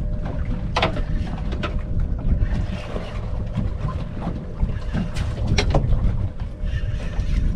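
Wind buffeting the microphone over water moving against a boat's hull, with several sharp knocks and a faint steady hum.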